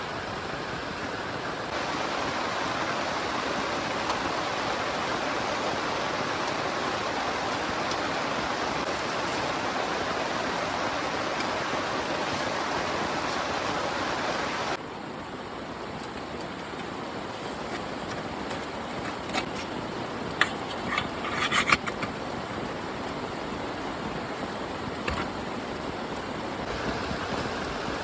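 Heavy rain falling steadily. It changes character abruptly a couple of times, and a few short sharp clicks and knocks come about three quarters of the way through.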